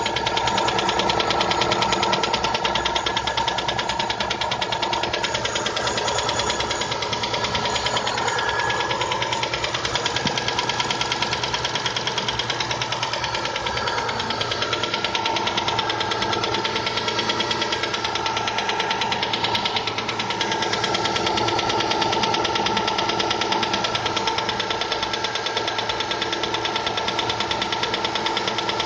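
Subaru EJ201 flat-four engine running steadily with a rapid, even knocking.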